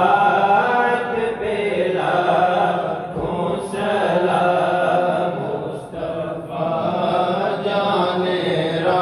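Devotional chanting in a melodic line by a man's voice, with long held notes and short breaths between phrases.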